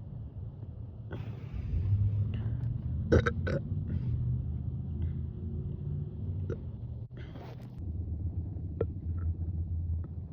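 A woman deliberately belching, bringing up gas from carbonated sparkling water: a long, low burp starting about a second in and running several seconds, then another low one starting near the end.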